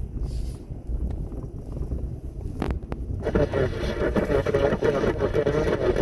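Car driving on a snow-covered road, heard from inside the cabin as a low rumble. A little under three seconds in there is a click, and a louder, busier sound sets in just after it.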